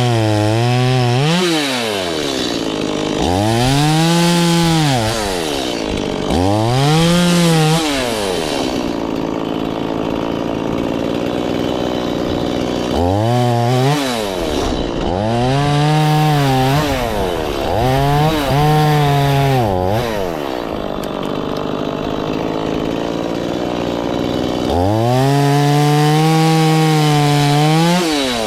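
Two-stroke chainsaw repeatedly revved up to full throttle and let back down, about eight times, with two longer rougher stretches as the chain cuts through wood.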